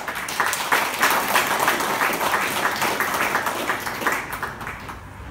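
Audience applauding: many hands clapping together, starting at once, strongest through the middle and thinning out near the end.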